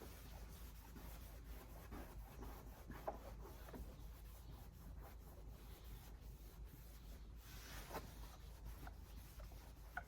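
Faint, irregular rubbing and scratching: hand work on a car's plastic headlight lens.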